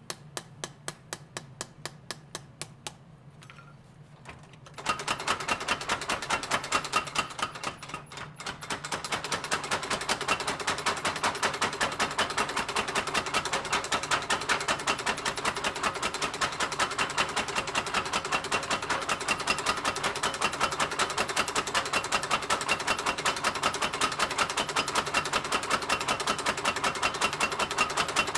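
A hand hammer strikes hot steel on an anvil, about three even blows a second. About five seconds in, a mechanical power hammer starts up and pounds the glowing blank with rapid, even blows that run on steadily, as the two steels of a laminated knife blank are hammered together.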